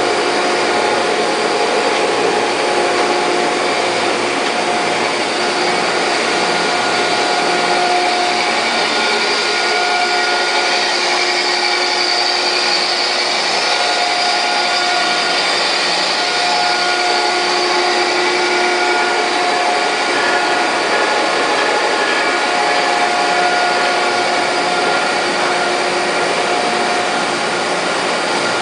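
Landis cylindrical grinder running under power: a steady motor whine and hum with a few steady tones that come and go.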